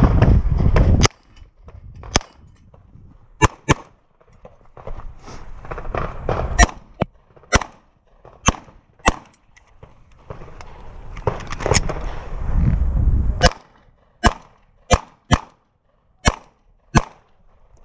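About fourteen semi-automatic pistol shots fired at an irregular pace, several in quick pairs, as the shooter works through a stage. A hissing, rustling noise fills the gaps between shots, and there is a loud low rumble in the first second.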